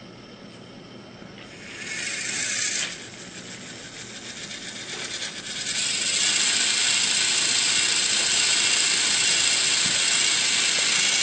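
Battery-powered Gordon toy train's motor and plastic gears whirring and ratcheting. There is a brief louder stretch about two seconds in, and from about six seconds in a louder, steady whir: the engine has got stuck on the track with its motor still running.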